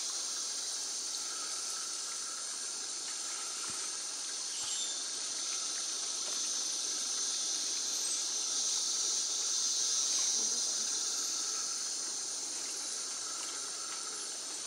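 Tropical rainforest insect chorus: a steady, dense high-pitched buzz, with a lower insect trill that comes and goes every second or so.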